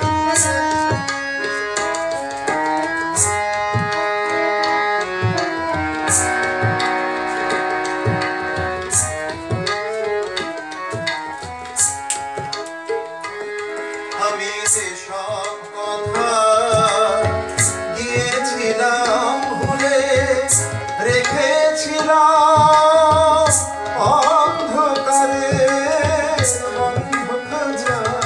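Indian classical-style Bengali song on raga Darbari Kanada with tabla accompaniment: held notes from a sustained melodic instrument at first, then a wavering melodic line, likely a singing voice, from about halfway, over steady tabla strokes.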